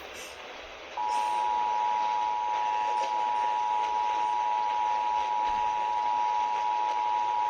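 Emergency Alert System two-tone attention signal (853 Hz and 960 Hz sounded together), a steady dual-tone alert starting about a second in after a short stretch of receiver hiss. It announces the Minnesota required monthly test.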